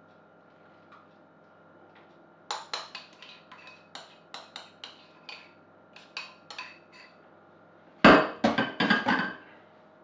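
A spoon clinks and scrapes against a small bowl while the last of the cream cheese is scraped out. A run of sharp taps starts a couple of seconds in, and a louder cluster of knocks follows near the end.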